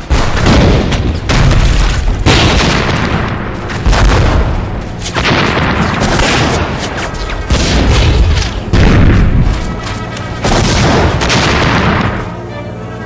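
A battle-scene soundtrack of repeated explosions and gunfire, a loud blast roughly every second, each with a deep rumble. Near the end the blasts stop and orchestral string music takes over.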